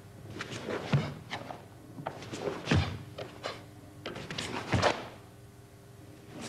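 A karate gi snapping and bare feet stepping and stamping on a mat as kata techniques are performed: a series of sharp swishes and thuds, the loudest about one, three and five seconds in.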